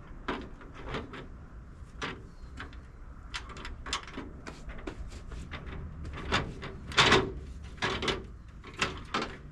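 Irregular clicks, knocks and rattles of a plastic aftermarket grille being pushed and settled into its mounting on the front of a Toyota Sequoia, with the loudest knocks about seven seconds in.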